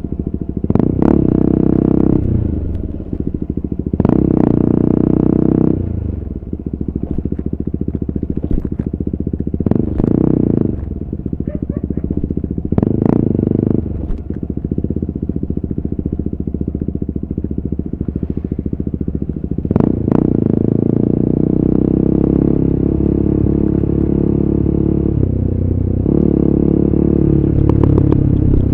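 KTM RC 390's single-cylinder engine through an Akrapovic exhaust, ridden on the road: the engine note rises and falls several times as the throttle is opened and closed, then holds a steady, loud pull from about two-thirds of the way through.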